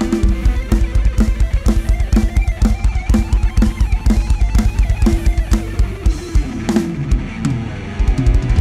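Live rock band playing an instrumental passage with no singing. The drum kit keeps a steady beat of about two and a half bass-drum strokes a second under guitar and bass. Near the end there is a falling run and a cymbal crash, then the beat picks up again.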